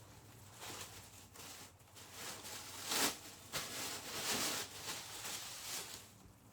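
Rustling and handling noises in short, irregular bursts as craft items are moved about, loudest about three seconds in.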